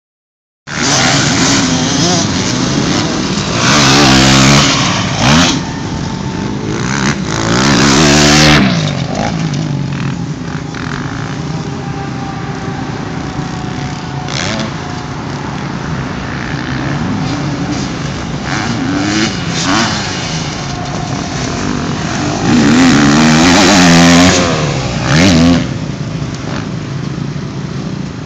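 Several motocross bikes running on a dirt track, their engines revving up and down through the gears. The loudest stretches are bikes passing close, about four, eight and twenty-three seconds in.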